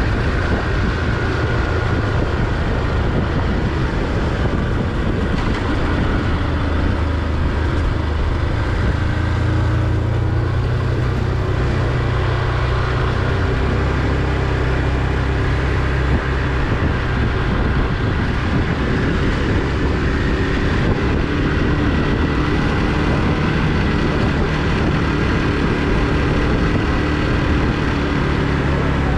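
Motorcycle engine running steadily under way, mixed with wind rush and road noise on the rider's microphone.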